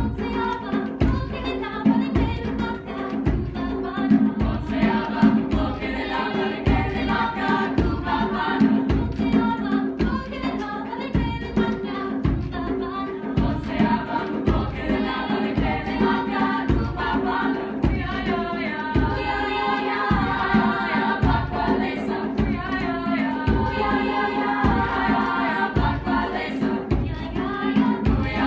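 Women's choir singing in parts, with a piano accompaniment striking low notes about twice a second under the voices.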